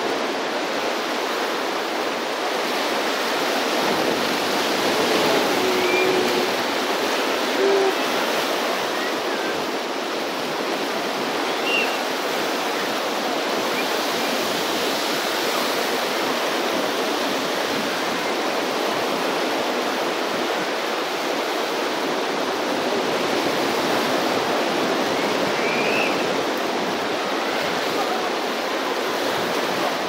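Ocean surf: swell waves breaking and washing up the beach, a steady rush of water that rises and falls slowly in loudness.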